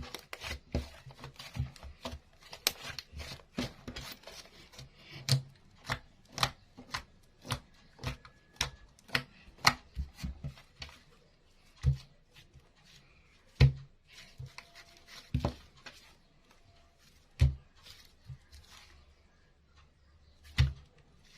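Crisp chopping strokes onto a hard surface, each with a sharp click and a low thud. They come quickly and close together for the first several seconds, then singly about every one and a half to two seconds.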